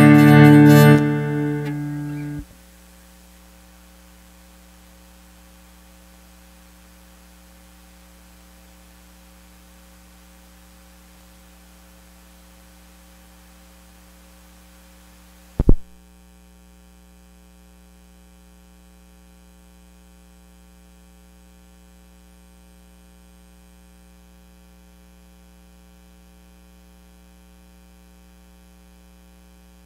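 Acoustic guitar music fades and cuts off about two seconds in. What follows is a steady electrical mains hum, broken once about halfway by a single loud pop.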